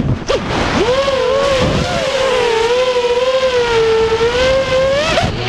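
Racing quadcopter's brushless motors (Cobra 2206, 2100 KV) and propellers whining in flight. The pitch dips sharply on throttle chops several times in the first two seconds, then holds fairly steady under throttle. It rises just before cutting off suddenly at the end.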